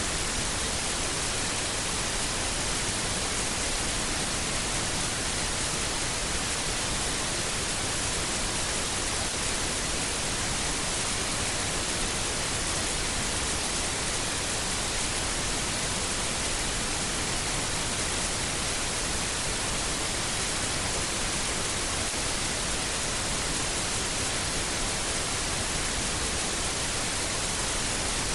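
Steady hiss of signal static, even and unchanging in level and pitch, like a dead broadcast channel.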